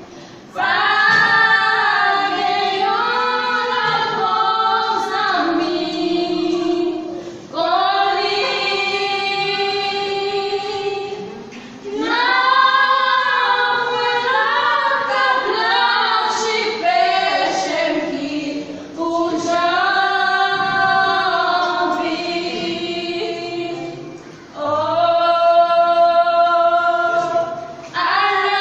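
Several women singing a gospel song together, in sung phrases broken by short pauses between lines.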